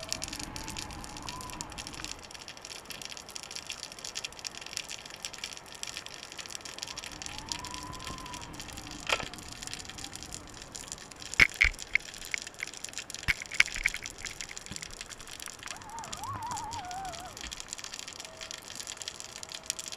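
Underwater sound picked up through a GoPro Hero3's waterproof housing lowered on a weighted line: a steady hiss with several sharp clicks and knocks, loudest in a quick cluster a little past the middle. A few faint tones slowly rise and fall in pitch.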